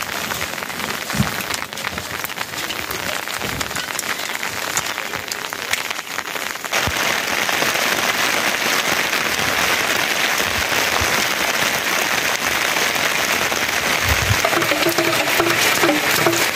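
Steady rain falling, with the patter of drops ticking on surfaces. About seven seconds in it becomes a denser, louder hiss.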